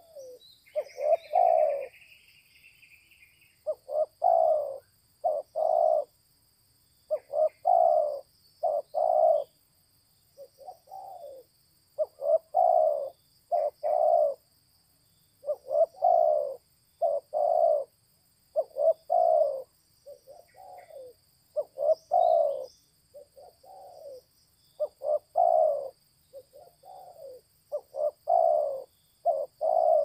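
Spotted dove cooing: short low coo phrases in groups of two or three, repeated about every two seconds without a break.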